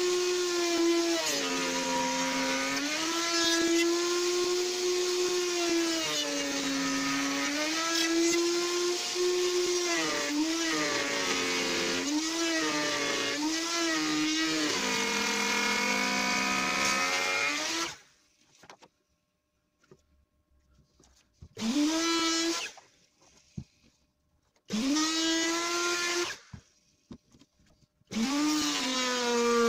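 Handheld plunge router with a bearing-guided trimming cutter, extended almost as far as it will go, running and cutting timber along a template; its pitch sags and recovers over and over as the cutter bites. About 18 seconds in it is switched off, then started three more times in short bursts of a second or two, each rising in pitch as it spins up.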